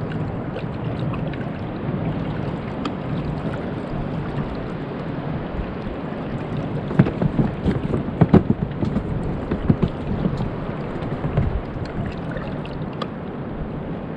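Fishing kayak being moved across the water: a steady wash of water and wind noise, with a short run of knocks about seven to ten seconds in.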